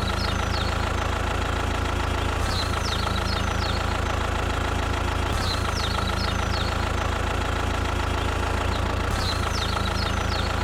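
A tractor engine idling steadily, with birds chirping in short clusters of quick falling notes above it.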